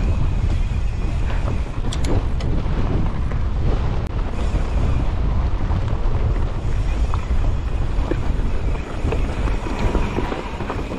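Wind rushing over the microphone of a mountain bike rolling along a rocky trail, with tyre noise and scattered short clicks and rattles from the bike.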